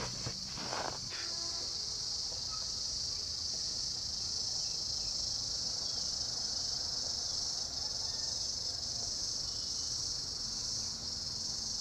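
A chorus of cicadas singing, one steady high-pitched drone without a break. A few brief soft knocks come in the first second.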